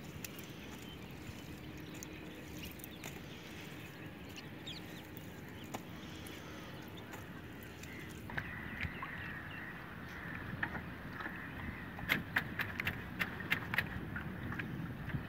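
Wet fishing net being hauled by hand over the side of a small wooden canoe, with water lapping and dripping off the mesh. Near the end come a run of sharp clicks and small splashes as the net, with its plastic floats, comes aboard.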